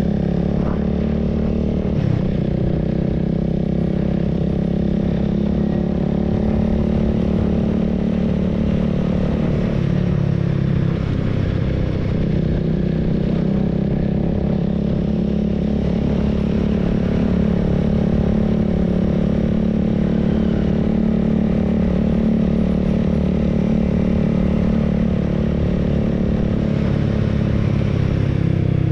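Honda Rebel 300's single-cylinder engine running as the motorcycle rides along at a fairly steady pace, with road and wind noise. The engine note eases off and picks up again around the middle.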